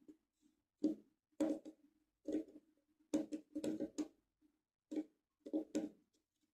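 Precision screwdriver driving a small M2.5 machine screw into a 3D-printed plastic iris housing: a string of short clicks and creaks, about one or two a second, as the bit turns the screw into the plastic.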